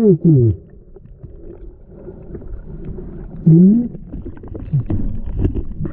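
Underwater audio: short, muffled, wordless vocal sounds, one gliding down in pitch at the start and one rising about three and a half seconds in, over a low rumble of moving water with scattered small clicks.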